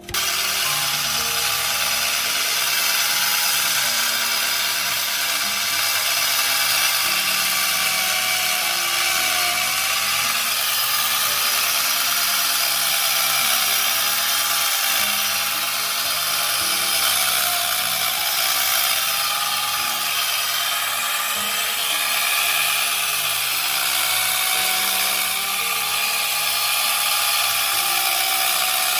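Power tool cutting wood, running steadily, its motor pitch dipping slightly every few seconds under load.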